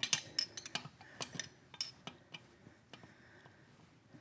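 Wrench clinking and clicking against a loosened nut with rounded hex flats on an engine stud: irregular sharp metal clicks, most of them in the first two seconds, thinning out afterwards.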